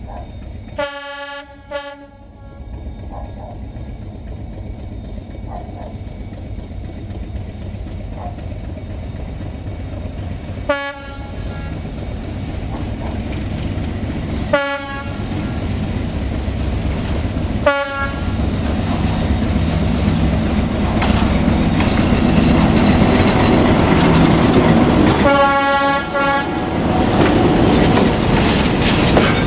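Vietnam Railways D12E diesel locomotive approaching and passing with a freight train, its engine rumble growing louder as it nears. Its horn sounds repeatedly: a blast and a short follow-up near the start, three short toots through the middle, and a longer blast near the end, as the open wagons roll past over the rails.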